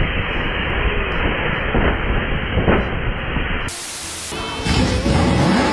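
Emergency evacuation slide inflating out of an airliner's front door: a loud, steady rushing hiss. About three and a half seconds in it gives way to a short burst of TV-static noise from a logo transition.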